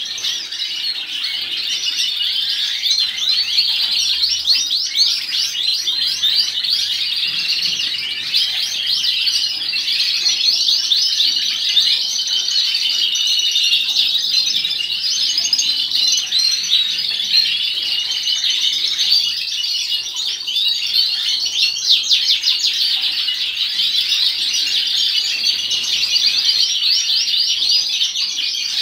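Many caged canaries chirping and singing at once: a continuous chorus of rapid, high twittering and warbling, with no single bird standing out.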